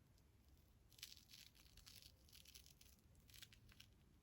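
Near silence, with faint rustling and small crackles from about a second in, the kind of noise made by handling the wig.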